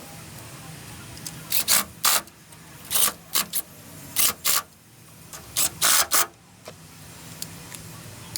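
A ratchet wrench worked in short rasping bursts, mostly in pairs, over a steady low hum.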